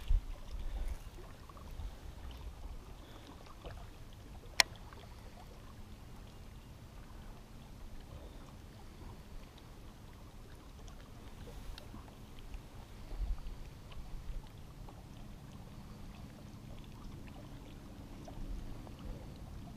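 Quiet open-air ambience on a fishing boat: a low steady rumble of wind and water around the hull, with one sharp click about four and a half seconds in.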